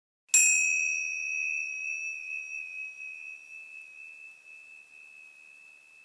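A single struck chime rings out about a third of a second in: one clear high tone that slowly dies away over several seconds, its higher overtones fading first.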